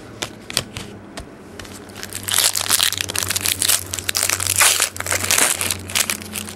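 Trading-card pack wrapper crinkling and tearing as it is ripped open, loudest from about two seconds in until near the end, after a few light clicks and rustles.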